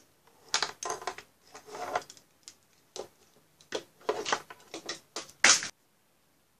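Handling noise: a quick run of irregular knocks and rustles as toys are moved by hand and the camera is shifted, with the loudest knock near the end, then it stops.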